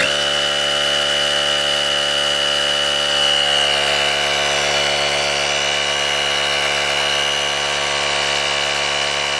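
Auxito AJ01 portable air compressor switching on and running steadily as it inflates a car tire from about 18 psi: a constant motor-and-pump hum with a high, steady whine over it.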